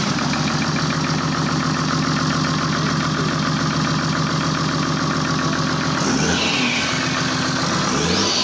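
Toyota 1HD-FTE 4.2-litre straight-six turbo diesel running at a steady idle, then revved briefly twice near the end, with a whine that rises and falls with the revs.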